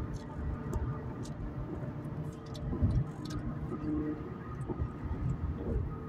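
Steady road and engine rumble inside the cabin of a 2011 Acura TL cruising at highway speed.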